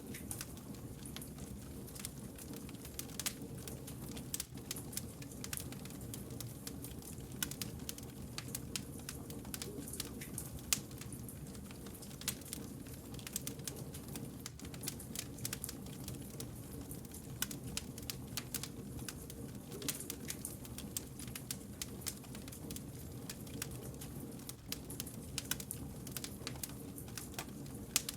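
Wood fire burning, with frequent irregular crackles and sharp pops of the logs over a steady low rumble of the flames.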